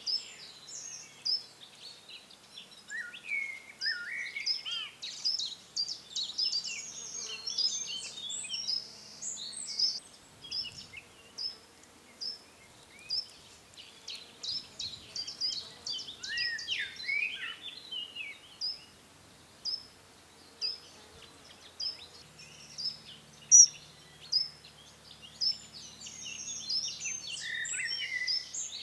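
Several songbirds singing together: short high chirps repeated about once or twice a second, mixed with quick falling and trilling phrases. A faint buzzing insect hums underneath, louder in the last third.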